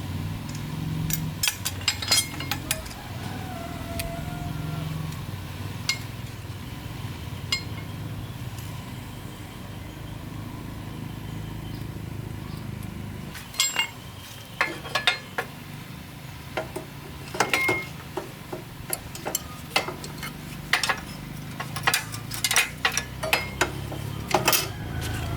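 Metal tools and parts clinking and tapping, in irregular clusters that grow busier in the second half, over a steady low hum.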